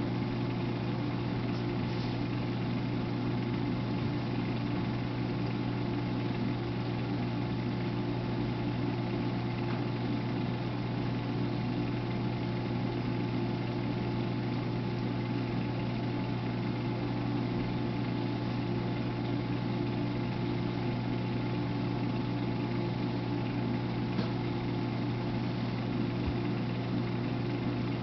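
Steady low motor hum of running reef-aquarium equipment, with a faint even hiss over it.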